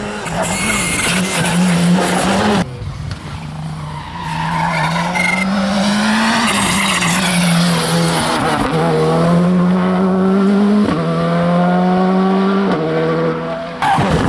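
Rally car engines pulling hard through the gears as they pass. The pitch climbs, drops at each upshift and climbs again. The sound cuts abruptly twice as one car gives way to the next.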